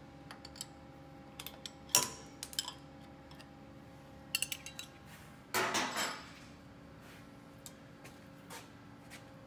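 Steel open-end wrench clinking and tapping against the metal lock nuts and fittings of the machine's linkage eye bolts: a scatter of sharp metallic clicks, the loudest about two seconds in, with a brief rustle a little past halfway. A faint steady hum runs underneath.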